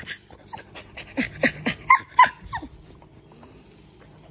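A dog whining in a rapid run of short, high yelps, each sliding down in pitch, that stops a little under three seconds in.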